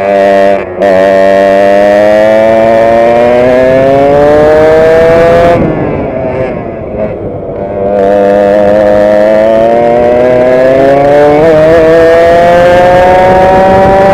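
Racing kart engine heard from the driver's seat, running at full throttle with its note climbing steadily. About five and a half seconds in the driver lifts off and the note falls and quietens for a couple of seconds, then the throttle opens again and the pitch climbs once more.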